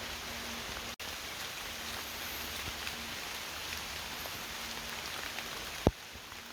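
Steady rain pattering, with many small drop ticks scattered through it; a single sharp knock sounds near the end.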